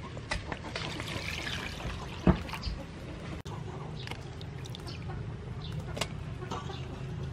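Water poured into a stainless steel bowl of shucked scallop meat, then a hand swishing and rubbing the scallops in the water to wash them. A sharp knock a little over two seconds in is the loudest sound.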